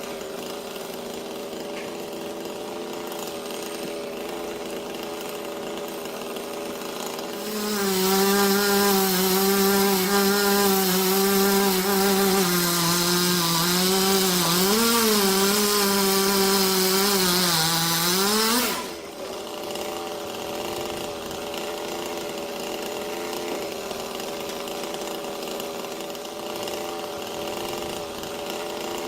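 Chainsaw at full throttle cutting wood for about eleven seconds, its pitch wavering and sagging under load, then dropping away suddenly. A quieter, steady engine note runs before and after.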